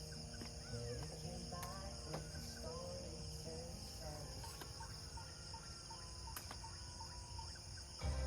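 Steady high chirring of crickets and other insects, with scattered short calls and a run of short repeated notes about twice a second midway. Background music comes in near the end.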